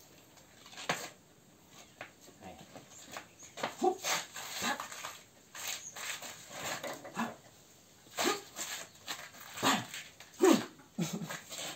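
Scuffs, slaps and footfalls of two people grappling in a knife-disarm drill, with short vocal cries several times; the loudest cry comes near the end.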